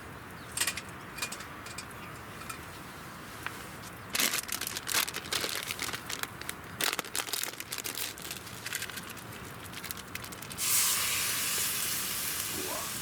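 Scattered sharp crackles, then a dense run of clicks and crackles. About eleven seconds in, a loud sizzle starts suddenly and slowly dies down: zabuton beef laid on a hot grill over a campfire.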